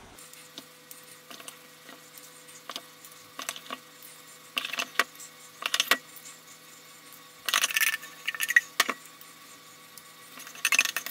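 A spoon clinking and scraping against stainless steel ring moulds on a baking tray as burger mix is dropped in and spread; irregular light clinks, with a few louder bunches of clinks.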